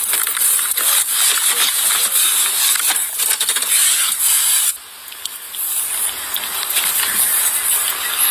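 Police body-camera microphone picking up heavy rustling and hiss from the wearer's movement, with scattered clicks and knocks. The noise drops off suddenly a little past halfway, then a steadier hiss builds back.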